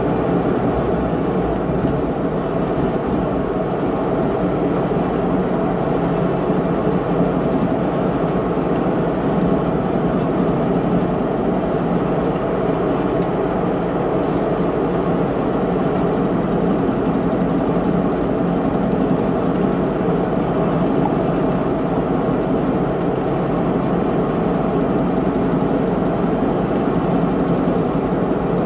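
Heavy military truck's diesel engine running steadily while driving, heard from inside the cab with road and cab rattle noise. The engine hum holds an even pitch.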